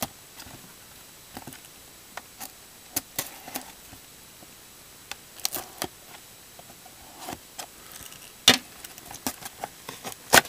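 Serrated knife blade slitting and scraping the plastic shrink-wrap on a cardboard trading-card box, with scattered scratches, taps and clicks as the box is handled; one sharper click late on.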